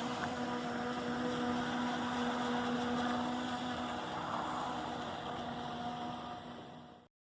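Electric radio-controlled model yacht running on a 4S (14.8 V) battery: a steady motor hum over rushing water. It fades near the end, then cuts off abruptly.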